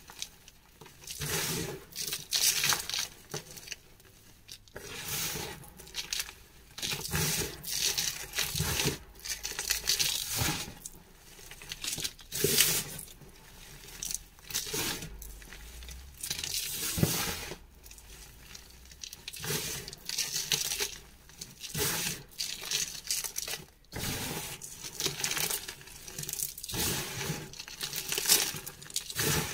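Hands squeezing, scooping and sprinkling crushed chalk powder: soft crunching and rustling as clumps break and powder falls, in uneven bursts about a second long with short pauses between.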